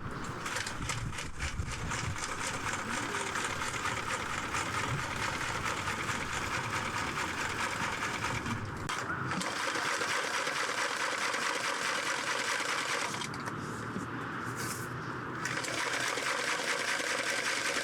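Electric sewing machine stitching in a fast, steady run. It breaks off briefly about halfway through and eases off for a couple of seconds later on before running on.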